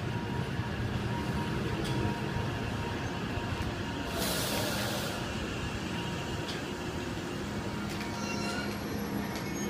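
E353 series limited express electric train rolling slowly into a station platform: a steady rumble of wheels on rail, with a brief hiss about four seconds in.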